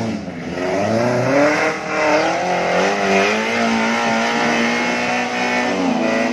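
Small off-road 4x4's engine revving up and down repeatedly as it churns through a deep mud rut, the engine speed climbing and dropping several times under load.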